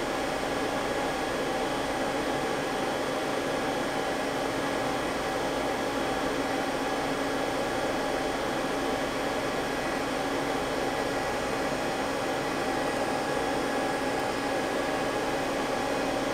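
Steady hum of running machinery and cooling fans, with a few steady tones in it and no change throughout; no cutting is heard.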